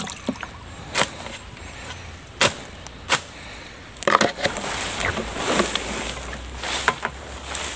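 Footsteps and rustling through grass and undergrowth: a scattering of separate short crunches and brushes. A steady high-pitched insect drone runs underneath.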